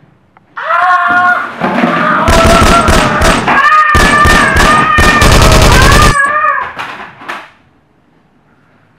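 A man yelling at a high pitch, his voice sliding up and down, with a fast rattle of automatic gunfire over it for about four seconds, broken once near the middle. All of it dies away about seven seconds in.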